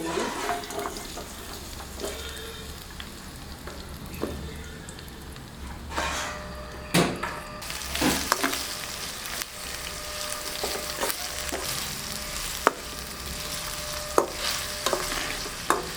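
Sliced onions frying and sizzling in hot oil in a pan while a spatula stirs them, with scrapes and sharp knocks of the spatula against the pan. The sizzle grows louder about halfway through.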